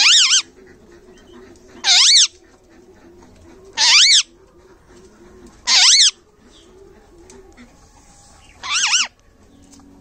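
Parrot calling five times, roughly every two seconds: short, loud calls that rise and then fall in pitch.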